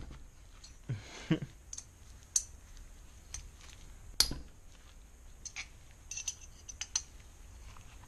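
Gloved hands working the glued-on intake off an 80cc two-stroke bicycle engine: scattered light clicks and taps of small metal parts, with louder knocks about a second in and again around four seconds in.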